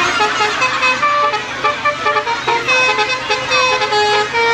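Telolet horn, a set of musical horns, playing a tune of held notes that step up and down in pitch without a break.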